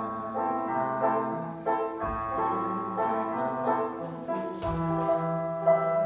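Yamaha electronic keyboard playing a melody over held chords and a moving bass line, with a few soft low beats.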